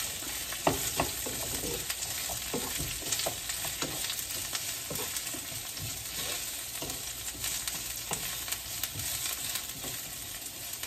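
Onions, garlic and ginger sizzling in hot oil in a frying pan while being stirred with a wooden spatula. The spatula knocks and scrapes against the pan now and then over the steady frying hiss.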